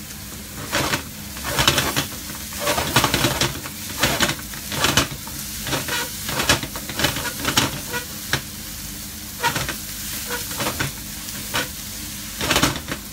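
Chopped onion and garlic sizzling in oil in a frying pan, sautéing until soft. A wooden spatula stirs and scrapes the pan in irregular strokes over the steady sizzle, with a brief flurry of scraping near the end.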